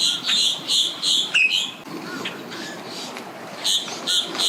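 A bird calling: a quick run of about five short, high, clear notes, the last one sliding down, then another run of about four near the end.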